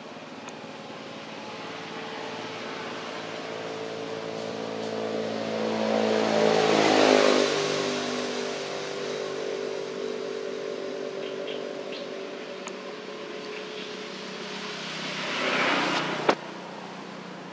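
A motor vehicle driving past: its engine note and road noise build to a peak about seven seconds in, then the pitch drops as it goes by. A second vehicle approaches near the end and is cut off by a sharp click.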